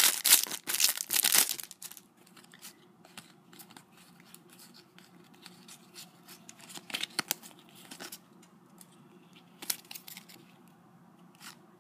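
Foil trading-card packet being torn open, crinkling loudly for about the first second and a half. Then comes quieter rustling, with a few sharp clicks, as the stiff cards are handled.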